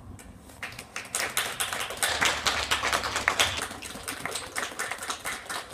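Scattered hand clapping from a small group of spectators, starting about half a second in, strongest in the middle and thinning out near the end.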